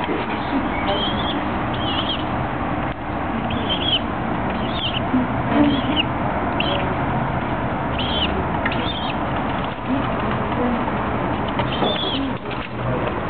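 A group of birds feeding at close range: a steady rustle of wings and jostling bodies, with about a dozen short, arched, high-pitched calls scattered through it.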